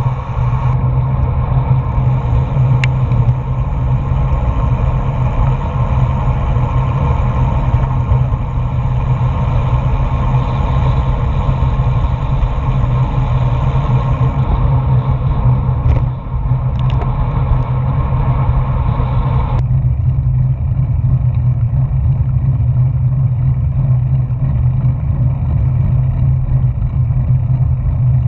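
Steady, loud wind rumble on a GoPro microphone mounted on a road bicycle while riding.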